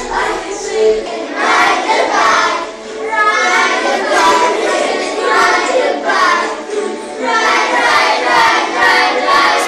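A group of young children singing a song together, in a rhythmic sung melody.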